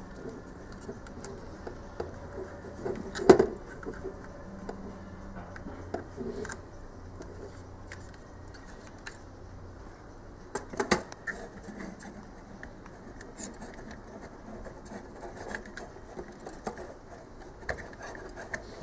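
Plastic clicks, taps and rubbing as a toy quadcopter's frame and parts are handled and fitted together, with a sharp knock about three seconds in and a few more close together around eleven seconds.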